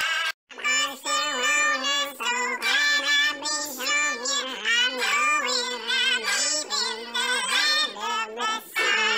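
A man singing a wavering melody through a Snapchat voice filter, which makes it sound pitch-shifted and synthetic. The sound cuts out completely for a moment just before half a second in.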